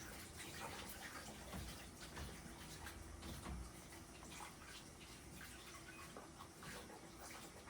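Faint washing-up at a sink: water splashing and trickling, with scattered small clinks and knocks of dishes.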